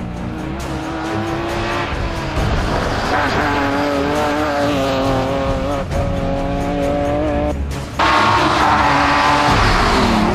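BMW rally car engine at high revs on a special stage, its pitch climbing and stepping down through gear changes. It gets abruptly louder about eight seconds in, as the car passes close.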